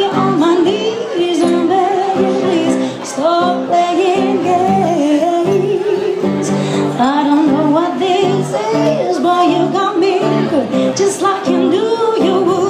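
A woman singing live into a microphone, her line full of sliding, ornamented runs, over a strummed acoustic guitar.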